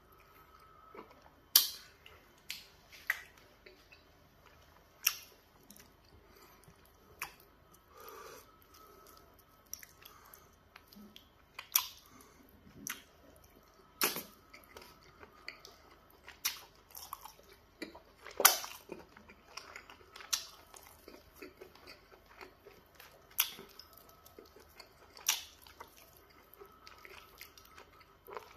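Close-up mouth sounds of a person eating pounded yam fufu and peanut butter soup by hand: chewing with sharp, wet smacks every second or two.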